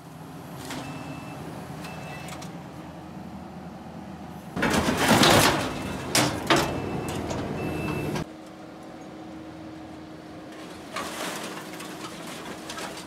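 Kubota skid steer engine running steadily while its grapple bucket handles scrap metal. About four and a half seconds in comes a loud crash and clatter of metal lasting over a second, then two sharp knocks, with a smaller clatter near the end; a few short high beeps sound early on and again around the middle.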